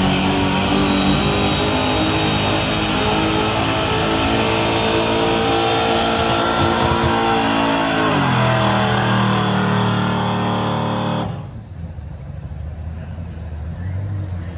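Gas engine of a Chevrolet pickup truck running at full throttle as it pulls a weight-transfer sled. About eight seconds in the revs fall away, and a few seconds later the engine drops to a low idle as the pull ends.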